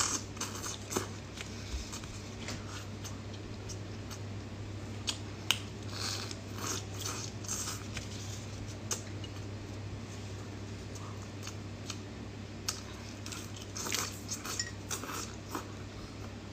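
Close-up mouth sounds of a person chewing boiled shrimp: soft wet clicks and bites at irregular moments, thickening into a quick cluster a little before the end, over a steady low hum.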